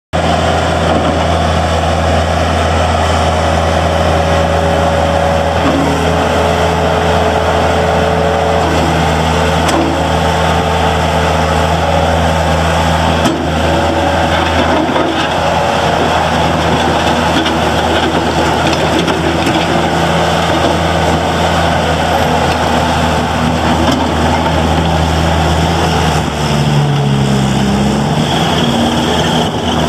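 Bobcat T300 skid steer loader's diesel engine running steadily, with the engine note shifting briefly near the end.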